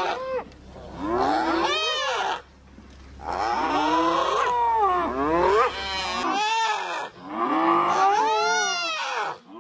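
An animal giving a series of loud, drawn-out bawling calls, each rising and then falling in pitch, with short gaps between them.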